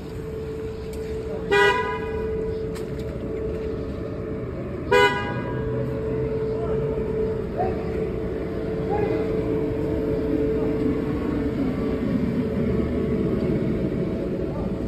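Two short vehicle horn honks about three and a half seconds apart, over a steady hum and street noise.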